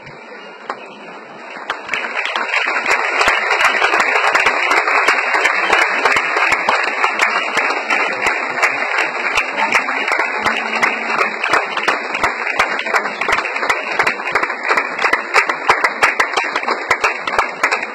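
Audience applauding. The clapping swells about two seconds in and then carries on steadily as a dense patter of many hands.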